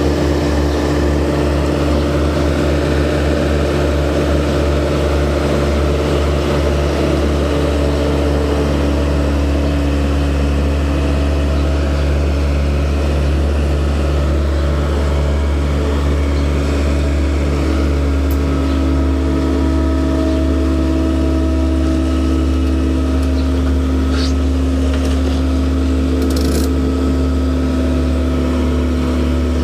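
Farm machine's engine running steadily at a constant speed, a low, even drone with no change in pitch.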